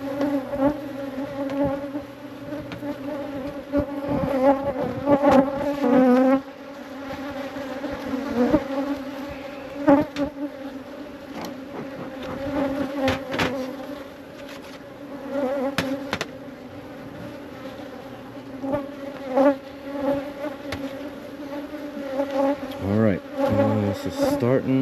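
Honeybees buzzing around an open hive in a steady drone. Now and then single bees whir close past, their pitch swooping up and down, and there are scattered sharp clicks.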